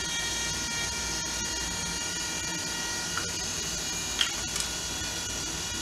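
Small electric motor of a Spin It cup turner running steadily, a whine with several fixed tones, as it rotates an epoxy-coated tumbler. A few faint clicks come about three and four seconds in.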